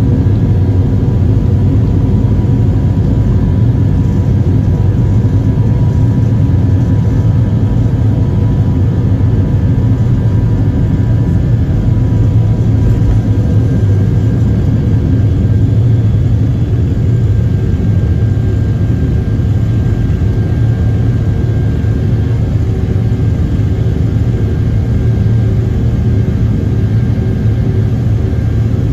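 Airliner engines running at takeoff thrust, heard from inside the passenger cabin as a loud, steady drone with a deep rumble and a few held tones.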